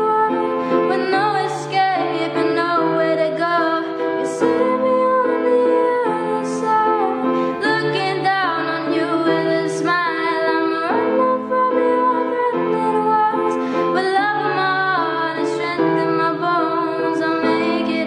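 A girl singing a slow song solo to her own piano accompaniment: a young female voice with long held notes over sustained piano chords.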